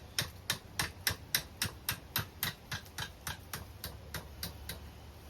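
Hand hammer striking a hot steel chain link on the anvil to bend it around the horn: a steady run of about three to four blows a second, growing lighter after about three seconds and stopping shortly before the end.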